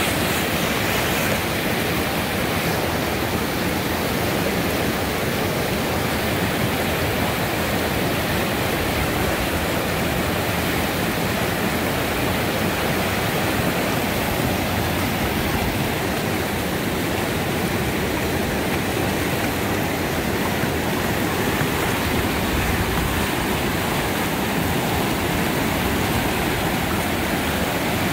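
Whitewater river rapids rushing steadily over boulders.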